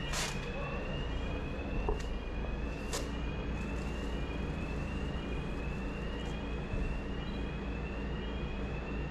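Town street sound: a low, steady vehicle rumble under a siren-like tone that rises in pitch about once a second and keeps repeating. A few sharp clicks stand out in the first three seconds.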